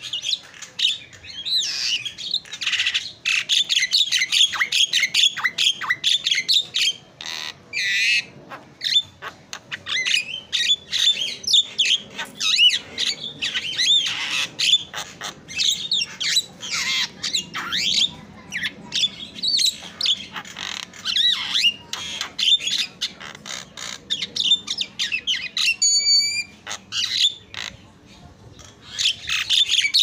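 Javan myna (jalak kebo) singing hard: a fast, nearly nonstop run of harsh chattering, squawks and whistled glides. Near the end comes a short, clear whistled note, then a brief lull before the chattering starts again.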